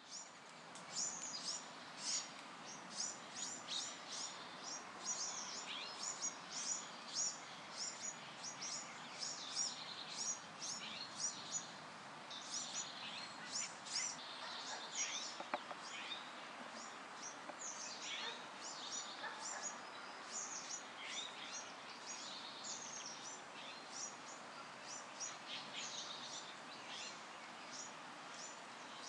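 Small birds chirping and twittering, many short high chirps a second, over a steady background hiss.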